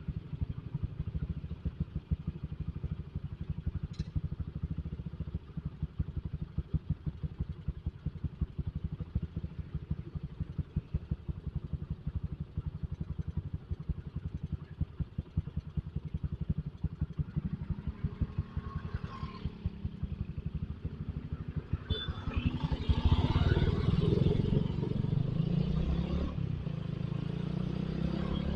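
Motorcycle engine running steadily while riding in traffic, growing louder about two-thirds of the way in.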